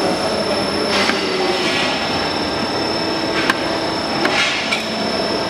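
Byfo spiral duct forming machine running, rolling and seaming galvanized steel strip into spiral duct: a steady clattering mechanical noise with two swells of rasping metal noise, about a second in and again past four seconds, and a sharp click a little after the middle.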